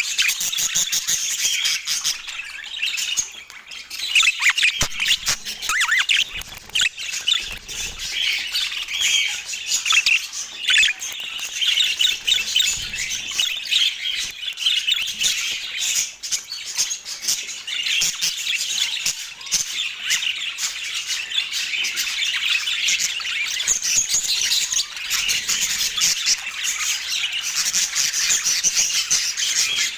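Budgerigar chatter: a continuous stream of fast warbles, chirps and squawks, with many short clicks and quick rising and falling notes.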